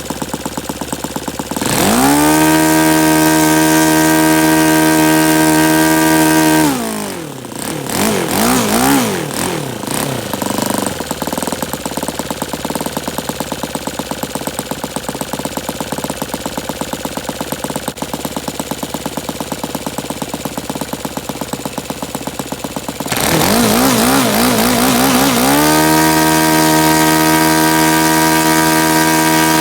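Saito FA-120S four-stroke glow model aircraft engine on a test run: idling with an even pulse, then opened up quickly to a steady high-rpm note about two seconds in. It drops back to idle with a wavering pitch, idles, and is run up to full throttle again for the last several seconds.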